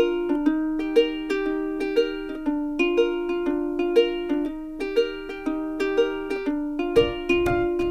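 Background music: a plucked ukulele playing a bright, even melody, with a low beat joining about seven seconds in.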